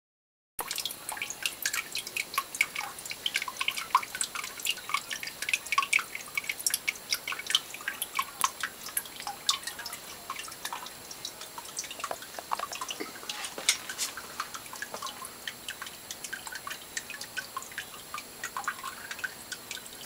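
Water dripping and trickling into a basement sump pit: a quick, irregular patter of drops that starts suddenly and thins out over the second half.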